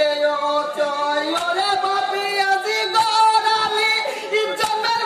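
Group singing of a Bengali marsiya (jari song), the held sung notes bending from one to the next, with a sharp percussive beat about every one and a half seconds.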